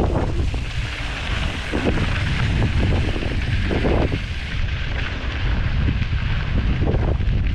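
Wind buffeting the action camera's microphone on a fast mountain-bike descent, over the rumble and crunch of knobby tyres on loose dirt and rock. A few short knocks as the bike hits bumps.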